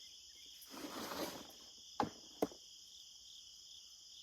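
Insects chirring steadily in a high, even band. About a second in there is a brief rustle, and around two seconds in two sharp clicks about half a second apart.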